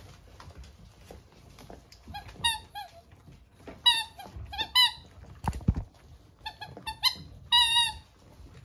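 Squeaky toy being chewed by a puppy: a run of short, high squeaks in quick clusters, starting about two seconds in, with the longest squeak near the end. A dull thump comes midway.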